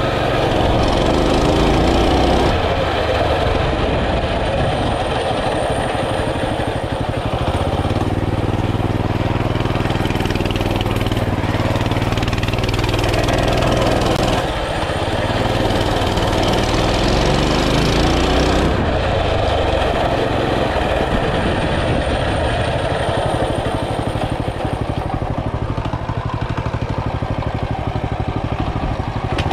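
Small single-cylinder Predator engine of a Coleman pit bike running while the bike is ridden, its revs rising and easing off several times.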